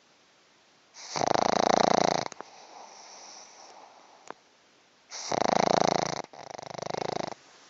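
Pug snoring in its sleep: two loud snores about four seconds apart, the second breaking briefly and trailing into a shorter, softer one.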